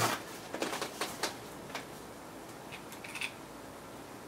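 Light clicks and taps of small parts and tools being handled on a tabletop, several in the first second and a half and a few more about three seconds in.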